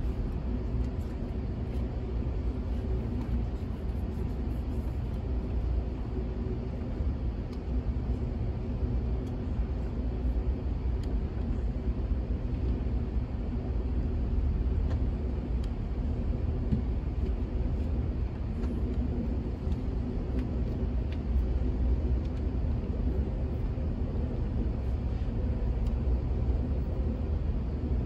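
Steady low rumble of a moving Amtrak passenger car, its wheels running on the rails, heard from inside the coach.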